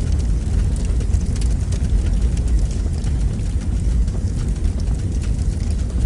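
Fire burning in a fireplace: a steady low roar with frequent small crackles and pops.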